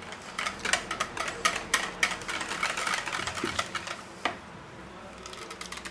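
Wire whisk clicking rapidly against the sides of a plastic mixing bowl while whipped cream is stirred into a quark cheesecake filling. A single sharper knock comes about four seconds in, and then the clicking stops.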